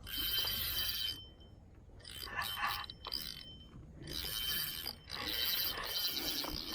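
Fishing reel being cranked in four spells of about a second each, a fine mechanical whirring clatter, as a hooked catfish is reeled in on braided line.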